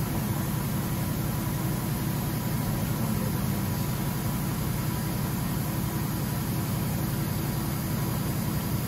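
DMG Mori CTX beta 1250 TC CNC turn-mill spindle running steadily at speed: an even machine hum with faint steady whining tones.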